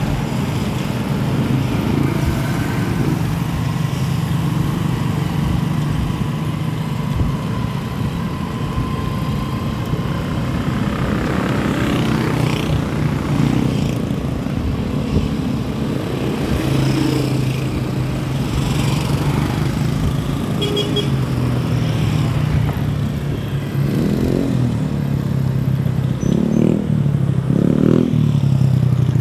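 Motorcycle engine running steadily, with road and wind noise from riding. Near the end several short rising and falling engine sweeps as other motorcycles pass close by.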